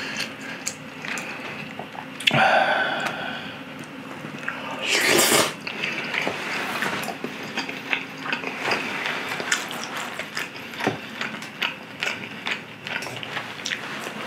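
Close-miked eating: wet chewing and mouth sounds of saucy chicken and udon noodles, with many small clicks and two louder slurps about two and five seconds in.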